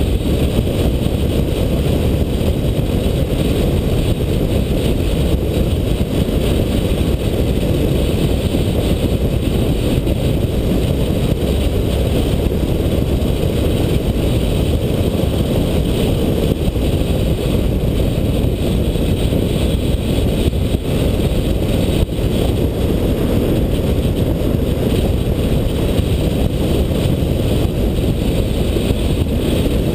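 Steady low rumble of a car driving along a road: tyre and wind noise at an even speed.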